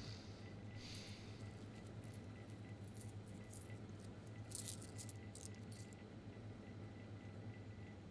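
Faint metallic clinks and small rattles, like coins being handled at a shop counter, scattered over the first six seconds or so, over a steady low hum.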